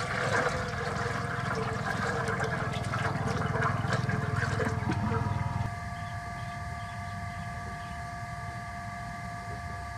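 Running water with splashing for about five and a half seconds, then it stops. A steady hum of several tones carries on underneath.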